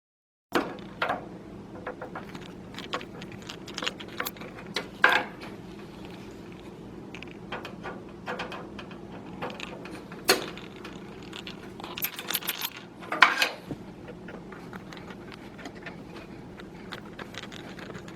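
Small motherboard screws being driven into metal standoffs with a magnetic-tip screwdriver: scattered metallic clicks and taps, with a few sharper knocks, over a faint steady hum.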